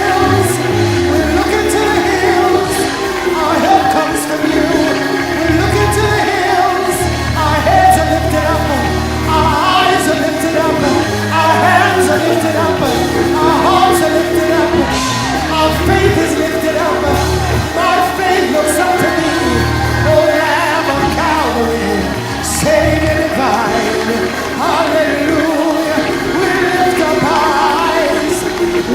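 Live church worship music: voices singing over held bass notes and percussion, with shouts from the congregation.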